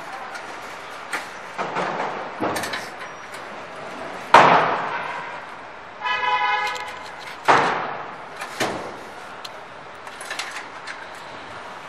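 Metal knocks and clanks as an electric motor is worked into place on a steel machine frame, the loudest about four and seven and a half seconds in, each ringing briefly. A vehicle horn sounds once for about a second, about six seconds in.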